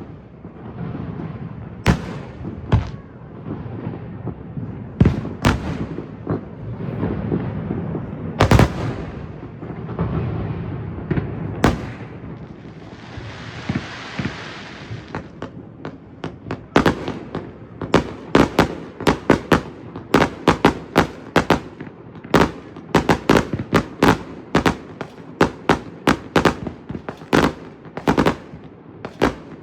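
Fireworks going off: scattered booms over a low rumble, a hissing burst about halfway through, then a rapid run of sharp bangs, two or three a second, through the second half.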